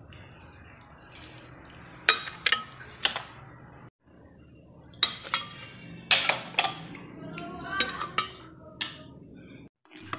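A spoon clinking and scraping against a stainless steel bowl and a glass blender jar as grated coconut is scooped into the blender, a scatter of sharp clinks with pauses between.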